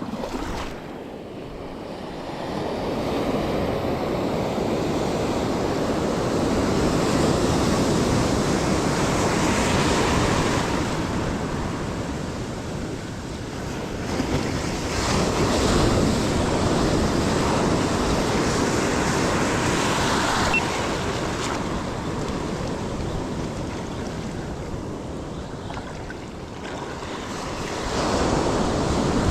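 Ocean surf breaking on a beach: the waves' noise swells and fades in long surges every several seconds.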